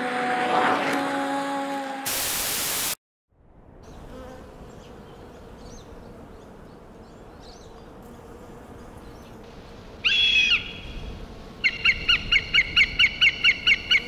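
Music ends and a second of loud hiss cuts off into brief silence. Then comes outdoor ambience with faint distant chirps, a single loud bird call about ten seconds in, and near the end a fast run of repeated bird notes, about four a second.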